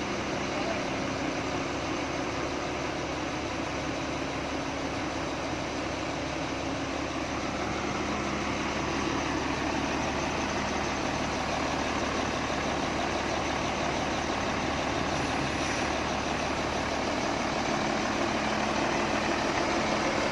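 Diesel engine of a Doosan SD200N wheel loader idling steadily, growing slightly louder in the second half.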